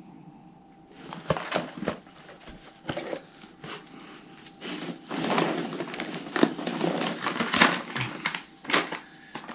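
Hands rummaging through polystyrene packing peanuts in a cardboard box, with irregular rustling and crackling that grows denser and louder in the second half.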